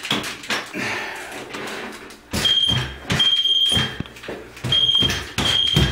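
Pin-type moisture meter on an extension pole, beeping high and steady about five times in the second half as its probe knocks against the bathroom drywall ceiling; the beeping signals that the ceiling is wet.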